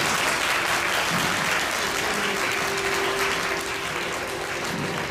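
Audience applauding, a steady mass of clapping that eases off slightly near the end.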